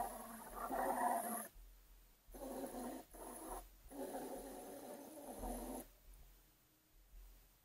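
RC boat's motor and propeller heard underwater through the camera's housing: a muffled, rough running noise in three bursts as the boat passes overhead, dying away about six seconds in.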